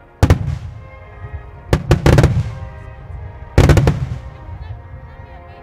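Starmine firework shells bursting in the sky: one sharp bang just after the start, a quick cluster of bangs around two seconds in, and another heavy group of bangs a little past three and a half seconds, each trailing off in a rumbling echo.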